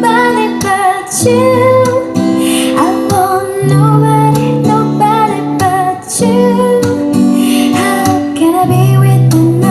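A song with a female singer and guitar accompaniment, played through a DIY loudspeaker system as a vocal sound test, with held notes that waver over steady bass notes.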